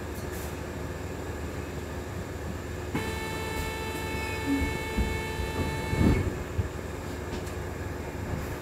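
Interior of a Wright Electroliner battery-electric double-decker bus: a steady low rumble, with a steady high whine of several pitches that comes in suddenly about three seconds in and cuts off about three seconds later. A couple of soft knocks near the middle.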